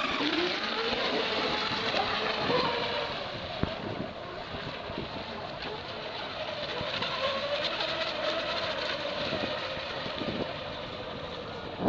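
Twin-motor radio-controlled speedboat running at speed, its motor whine rising right at the start and then rising and falling with the throttle over the hiss of the hull and spray on the water.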